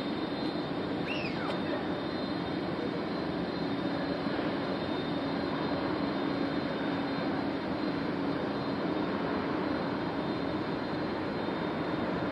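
Airbus A380-800 airliner's four Rolls-Royce Trent 900 jet engines making a steady roar with a low hum as it rolls down the runway after touchdown.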